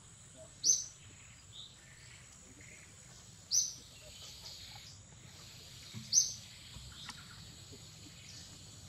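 Bird calls in forest: a short, sharp, high chirp repeated three times, about every two and a half to three seconds, with softer chirps between, over a steady faint high hum of insects.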